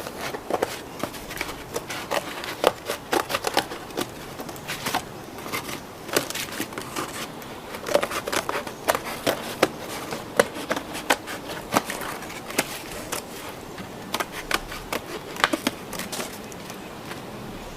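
Scissors cutting through cardboard: many irregular sharp snips and crackles of the card in quick succession.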